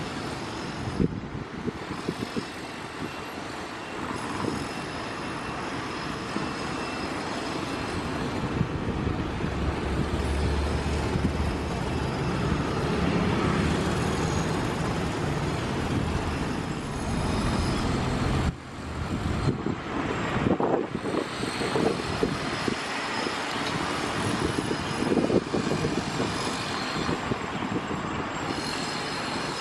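Busy road traffic: a steady wash of passing cars and trucks, with a sudden break about two-thirds of the way through.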